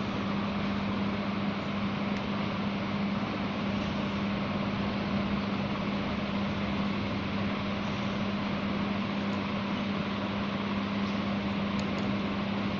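Electric fan running steadily: an even rush of air with a constant low hum.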